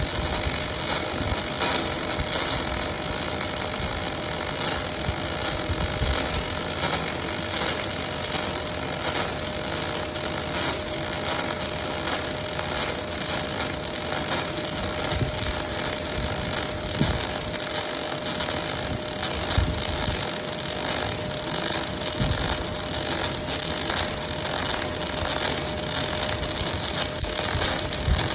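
Steady machine noise from a robotic welding workstation: an even hiss with a constant hum and a few low knocks.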